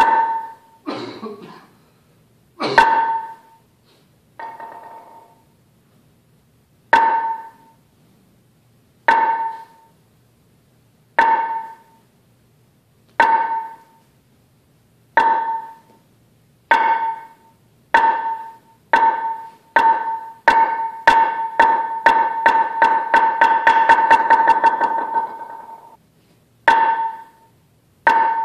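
A wooden sounding board (han) struck with a mallet, giving pitched wooden knocks. Single strokes about every two seconds speed up into a fast roll that fades out, then single strokes start again: the traditional call to the Zen hall.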